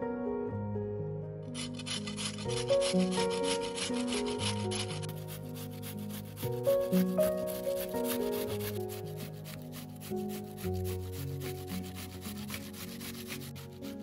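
A red onion grated on a stainless-steel flat hand grater, a rasping scrape of quick repeated strokes that starts about a second and a half in. Soft background music plays underneath throughout.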